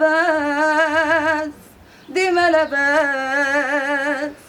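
A woman singing unaccompanied and without effects: two long held phrases with a wide vibrato and ornamented, wavering notes, separated by a short breath about one and a half seconds in.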